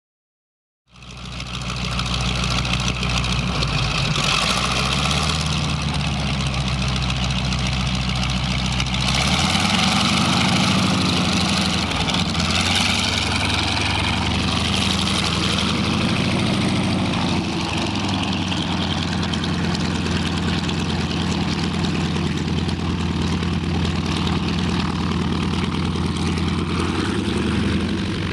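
North American AT-6 Texan's nine-cylinder radial piston engine idling, heard from outside the plane, starting about a second in. About nine seconds in the engine note shifts up and grows slightly louder as power is added to taxi away, then runs steadily.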